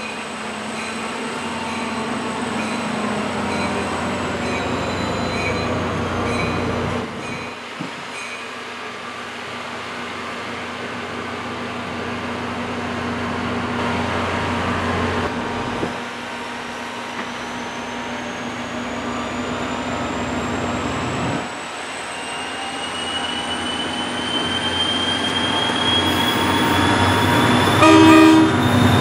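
EMD diesel engine of an NJ Transit GP40PH-2B locomotive running steadily as it approaches at the head of a passenger train, growing louder. In the last few seconds a whine rises in pitch, and the locomotive's horn starts sounding near the end.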